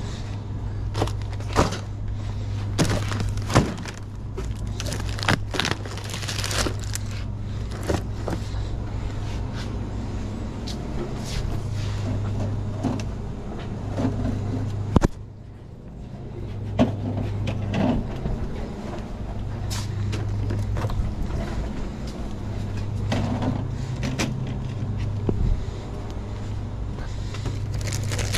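Plastic sports-drink bottles knocking and clacking as they are handled and set onto metal store shelves, many short knocks at uneven intervals over a steady low hum.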